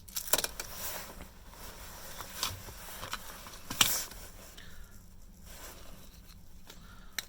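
Scattered light clicks and taps of small phone parts being handled and set down, the loudest knock near the middle.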